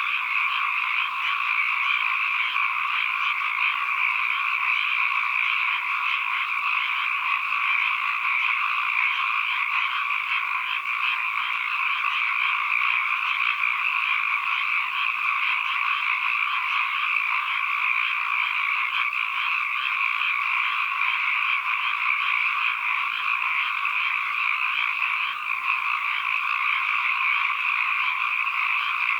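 A dense chorus of many frogs calling at once, forming a continuous din without pauses.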